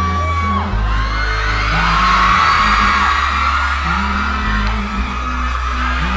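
Pop music playing, with a crowd of fans screaming and whooping over it.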